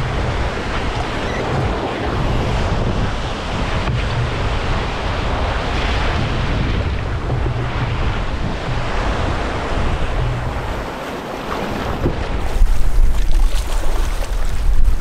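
Breaking waves and rough lake water washing around a canoe, with wind on the microphone. About twelve seconds in, the wind gets louder and gustier, buffeting the microphone.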